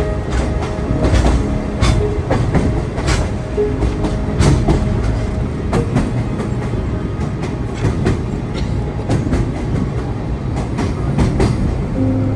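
Sagano trolley train running along the track, heard from aboard: a loud, steady rumble of the cars with irregular clacks and knocks from the wheels and couplings.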